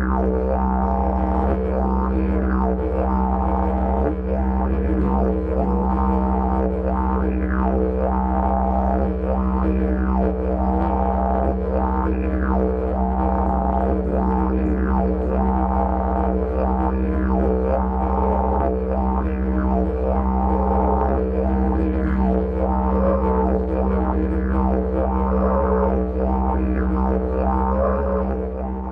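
Didgeridoo music: one unbroken low drone whose tone sweeps up and down in a steady rhythmic pattern, starting to fade out near the end.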